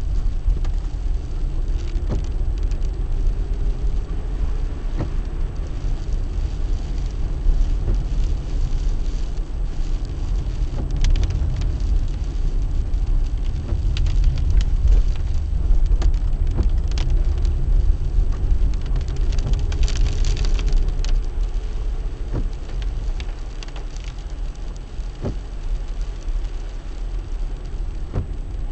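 A car driving on a wet road, with a steady low rumble of road and engine noise and scattered sharp ticks. The engine note rises faintly twice as the car speeds up, and there is a short hiss about two-thirds of the way through.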